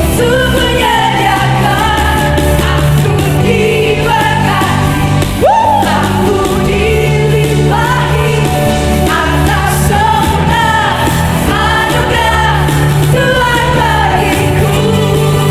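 Praise and worship song: a band with steady bass and singing voices. A brief sharp rising swoop about five seconds in is the loudest moment.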